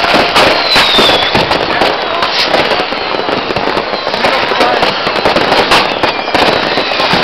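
New Year's Eve fireworks and firecrackers going off without a break: a dense, continuous crackle of bangs and pops, with a short falling whistle about half a second in.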